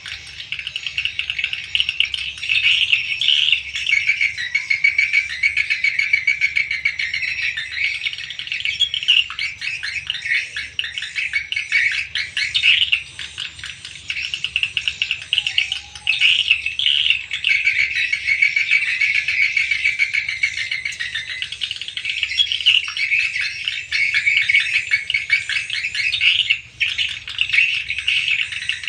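Swiftlets calling in a swiftlet house: a dense, unbroken twittering of high chirps with rapid clicking mixed in.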